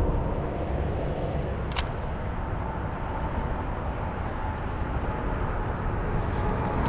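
Steady outdoor background noise, heaviest in the low end, with a single sharp click a little under two seconds in.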